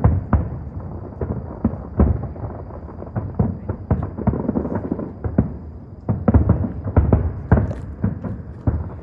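Fireworks shells bursting in quick succession, a string of booms with rumbling echoes between them, thickest about six to seven seconds in.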